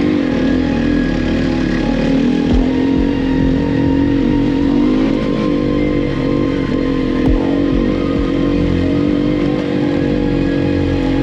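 Enduro dirt bike engine running at fairly steady revs, its pitch wavering slightly, with a couple of brief knocks.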